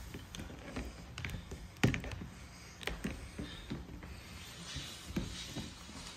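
Light, irregular plastic taps and clicks as a small plastic doll and its clear plastic hair wrapping are handled over a plastic tray, the sharpest tap about two seconds in.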